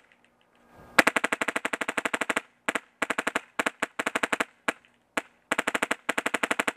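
VFC VR16 HPA airsoft rifle with a Polar Star Fusion Engine firing rapid semi-auto strings as fast as the trigger is pulled. It gives runs of short, sharp shots at about ten a second, broken by brief pauses and a few single shots.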